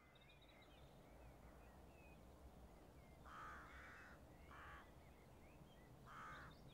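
Faint crow caws, three of them, about halfway through, a second later and near the end, over a quiet outdoor background with faint small-bird chirps.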